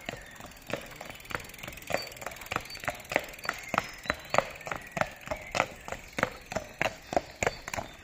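Hooves of a heavy, feather-legged horse walking on a tarmac path: an even clip-clop of about three hoofbeats a second, growing louder as the horse comes close.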